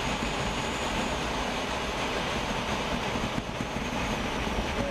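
Glider rolling over a grass airfield after touchdown: a steady rumble of the wheel and airframe on the ground, with air rushing past the cockpit.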